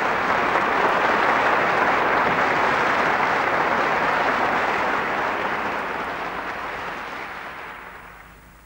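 Audience applauding in a concert hall: dense, steady clapping that fades away over the last few seconds.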